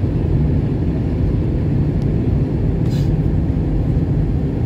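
Steady low cabin noise of an Airbus A320 in flight on approach: airflow and engine noise heard from inside the passenger cabin. A brief faint click comes about three seconds in.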